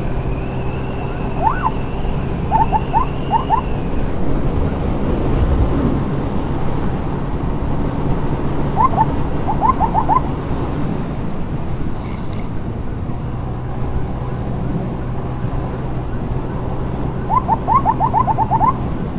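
Motorcycle engine and road and wind noise while riding, broken four times by short bursts of rapid rising siren chirps in quick succession, the last burst near the end.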